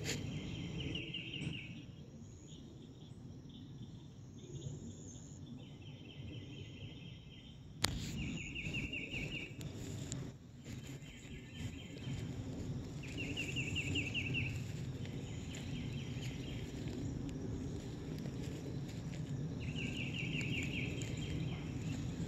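An unseen small creature's high, rapidly pulsed trill, each about a second long, repeating every few seconds over a low rustling from walking through grass. A single sharp click about eight seconds in.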